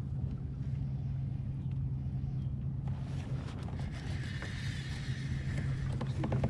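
Boat motor running with a steady low hum, with a brief higher hiss about four seconds in.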